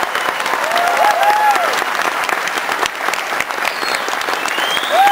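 Audience applauding, a dense steady clatter of many hands clapping, with a couple of brief rising-and-falling tones over it about a second in and again near the end.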